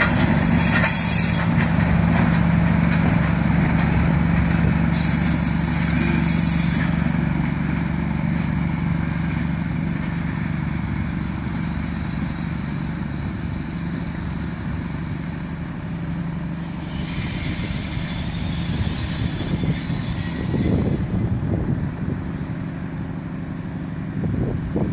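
VR Class Dv12 diesel-hydraulic locomotive's engine running steadily with a low hum, with a brief hiss about five seconds in. From about 17 seconds in, the wheels squeal high-pitched for several seconds.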